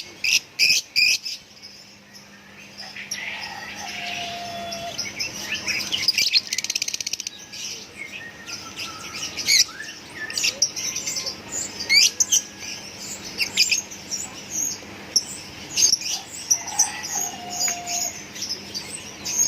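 Lovebirds chirping: many short, sharp high chirps, with a quick rattling trill about six seconds in.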